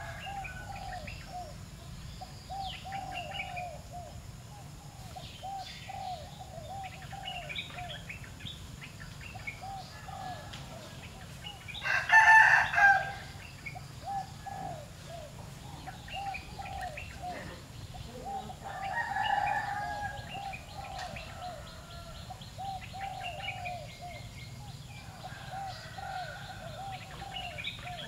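Rooster crowing once, loudly, about twelve seconds in, with a weaker call a few seconds later. Small birds chirp in the background, over a steady run of short repeated calls.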